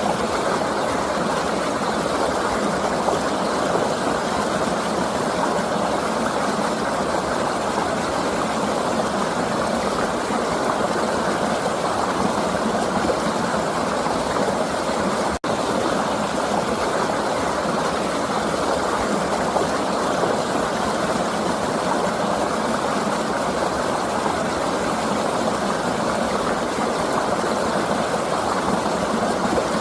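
River water flowing with a steady rush, cutting out for a split second about halfway through.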